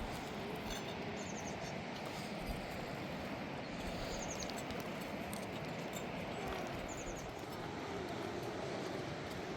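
Steady rush of flowing river water. A small bird's short, quick chirp series sounds several times over it.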